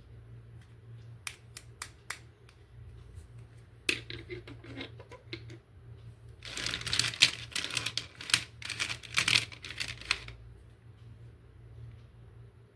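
Hard plastic clicks and snaps from a toy and its packaging being handled. A few single clicks come first, then a dense clattering run of about four seconds in the middle.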